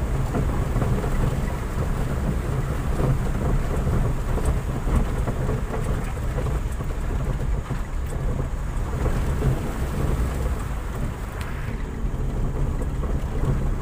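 Car cabin noise on a rough, stony dirt road: a steady low rumble from the tyres and suspension working over the rough surface, with a few faint knocks.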